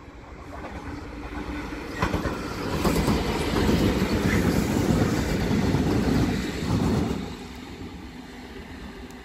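GBRf Class 66 diesel locomotives, coupled together, passing close by, with their EMD two-stroke engines and the clatter of wheels on the rails. The sound swells about two seconds in, stays loud for some four seconds, then falls away as they go past.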